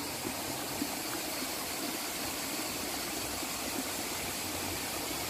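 Small rocky stream running, an even, steady rush of water over stones.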